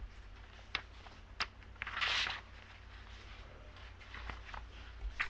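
Quiet room tone with a steady low hum, broken by a few faint short clicks and a brief soft hiss about two seconds in.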